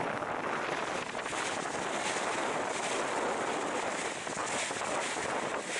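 Steady rush of wind and sea water from a boat under way on open water, with wind buffeting the microphone.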